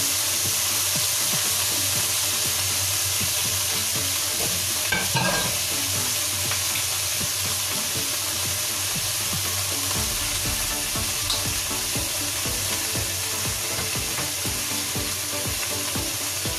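Leafy greens sizzling and crackling in hot oil in a frying pan, just after being tipped in, going on steadily.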